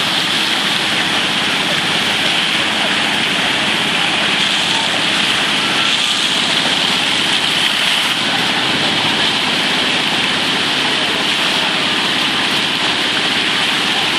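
Steady rushing hiss of water: a hose jet spraying in an arc across a pond and splashing onto its surface.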